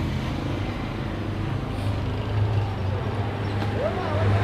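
A motor vehicle's engine running with a steady low hum that grows louder about halfway through, over general street noise.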